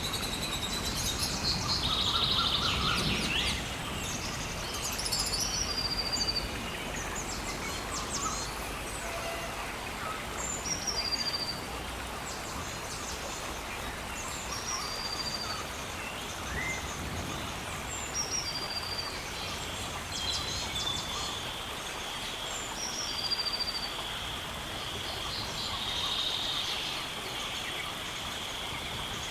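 Rainforest ambience: birds calling over a steady hiss, with a short, high whistled note repeating every second or two. From about two-thirds of the way in, a steady high-pitched drone joins the birds.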